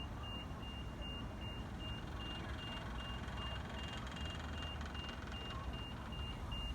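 An electronic warning beeper sounding evenly, about two and a half high beeps a second, over a steady low rumble.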